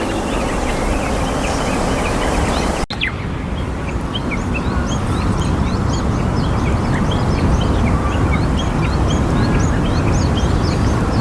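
Many short, high bird chirps in quick succession over a loud, steady low rumble, with a brief break in the sound about three seconds in.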